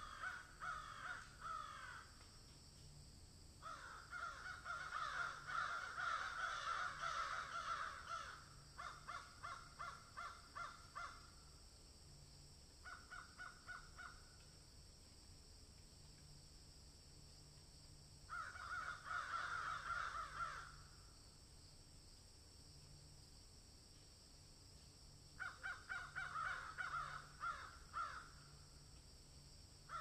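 Hippopotamus calling: several bouts of rapid, pulsing honks, the longest about four seconds, separated by quiet gaps.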